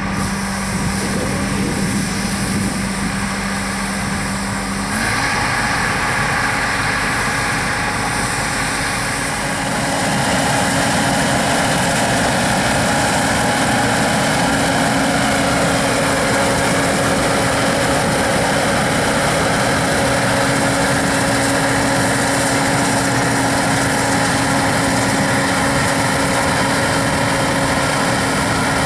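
Large farm machine's diesel engine running steadily. Its pitch steps up about five seconds in, and the sound grows louder and fuller about ten seconds in.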